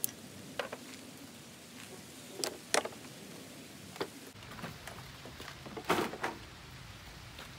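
Rain falling steadily, with a handful of short, irregular clicks and knocks over it, the loudest about six seconds in.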